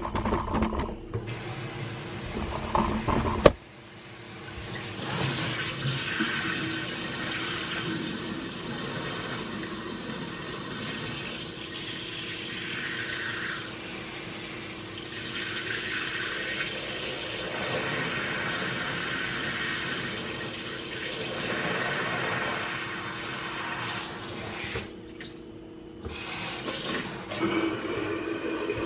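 Tap water running into a kitchen sink to test a drain pipe that has just been cleared and reassembled; the drain is still clogging. A few sharp knocks come before the water starts, and the flow stops briefly near the end.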